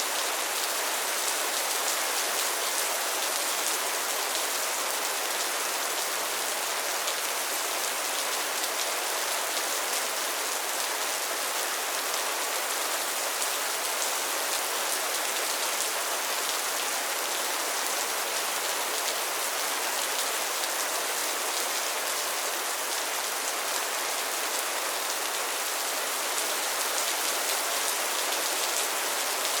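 Steady rain falling on a pond and its lily pads, a dense even patter of many small drop impacts with no let-up.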